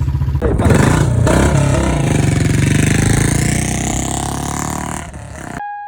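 Royal Enfield Bullet's single-cylinder engine revved hard about half a second in, its pitch rising and then falling away over several seconds. It is cut off abruptly near the end by a steady electronic beep tone.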